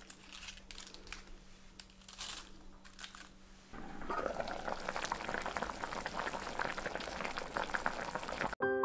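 Faint handling sounds as ingredients are laid into a stainless steel pot: scattered rustles and light knocks over a low steady hum. About four seconds in, a louder, continuous bubbling starts: a pot of pot-au-feu simmering, which cuts off just before the end.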